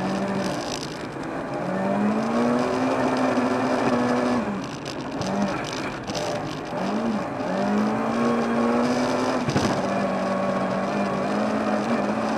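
Volvo 240 rally car's engine heard from inside the cabin, driven hard on a snowy stage. The engine note holds high, then breaks off and climbs again several times. A single sharp knock comes about three-quarters of the way through.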